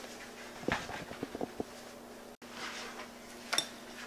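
Powdered sugar being sifted through a handheld mesh strainer: a few soft, light taps about a second in, over a faint steady hum.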